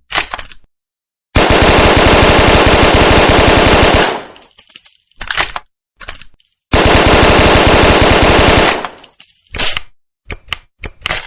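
Thompson submachine gun firing two long bursts of fully automatic fire, each about two to three seconds, the shots trailing off in echo. Short sharp metallic clicks and clacks of the gun being handled and reloaded come at the start, between the bursts and near the end.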